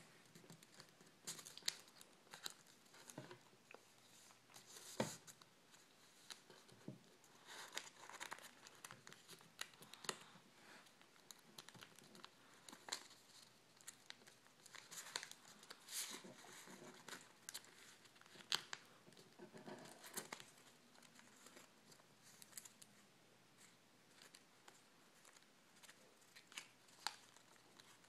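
Origami paper being folded and creased by hand: faint, irregular rustling and crinkling with short sharp clicks as the folds are pressed down.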